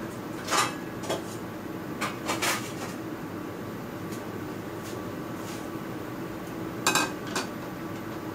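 Dishes and utensils being handled, clinking and knocking several times in the first few seconds and twice more near the end, over a steady hum.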